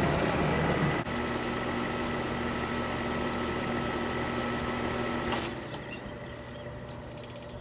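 Rheem Classic central air conditioner condensing units running: a steady compressor hum under the rush of the condenser fan. The owner feels no cooling from the 2016 2-ton unit and suspects it has a refrigerant leak. The sound drops quieter and duller about five and a half seconds in.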